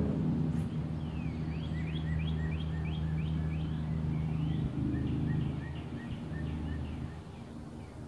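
An animal calling in a rapid run of short, falling chirps, about three a second, slowing after the first few seconds, over a steady low hum that fades near the end.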